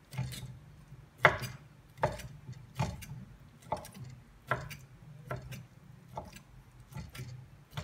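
Kitchen knife chopping raw prawn meat on an end-grain wooden cutting board: slow, even knocks of the blade on the wood, a little more than one a second.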